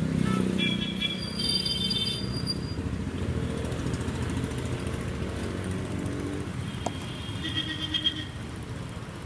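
A motor vehicle engine running on the street and fading after about six seconds, with brief high-pitched tones about a second and a half in and again near the end, over the faint sizzle of undampori frying in deep oil.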